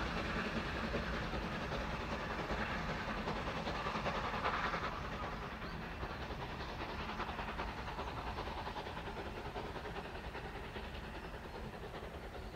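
Lancashire & Yorkshire Railway No 752 steam locomotive and its train running away along the line, the sound slowly fading as it recedes.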